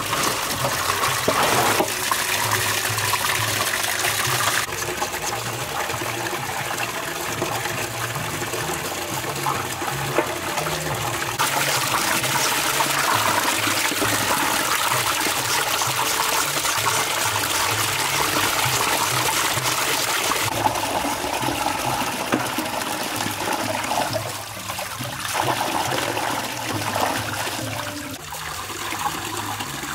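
Water running from an outdoor tap into a metal basin, splashing over a pork leg being rinsed by hand. The rush of water grows louder and softer a few times as the stream and the meat are moved.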